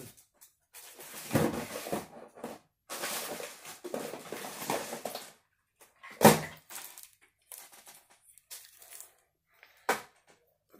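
Handling noise close to the microphone: rustling and shuffling as things are moved about, with one sharp knock about six seconds in and a few small clicks after.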